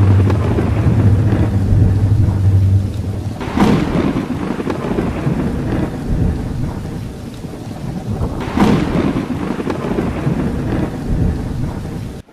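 Thunderstorm sound effect: steady rain hiss with rumbling thunder and two louder thunderclaps, about three and a half and eight and a half seconds in. A low steady hum sits under the first three seconds.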